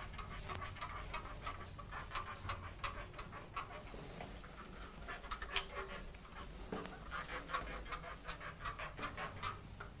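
Hand trigger spray bottle of multipurpose cleaner squirting onto shower tiles, a rapid run of short hissing sprays, several a second, kept up throughout.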